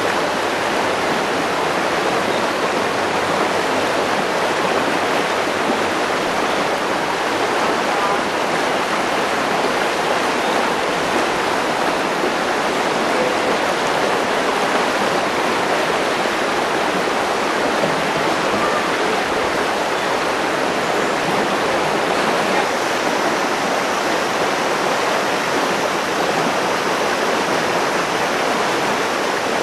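A river flowing steadily past, an even rush of water with no breaks.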